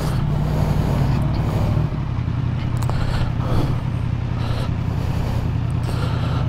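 Motorcycle engine running steadily at low revs, its note shifting slightly about two seconds in.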